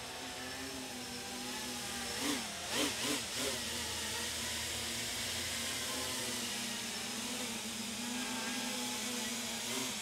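FPV quadcopter with 3D-printed six-blade OCTOblade propeller hubs (DalProp Fold 2 F7 blades) in flight: a steady motor-and-propeller hum with a wavering pitch from the motors. Several quick rises and falls in pitch come about two to three and a half seconds in, as the throttle changes.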